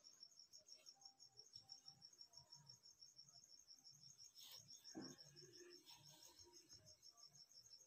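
Near silence with a cricket chirping steadily in a rapid, even pulse, and a faint knock about five seconds in.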